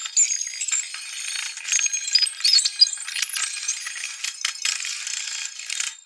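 Indoor percussion ensemble mid-show: a dense run of metallic mallet-percussion and cymbal-like strikes and clinks, heard thin and tinny with no bass.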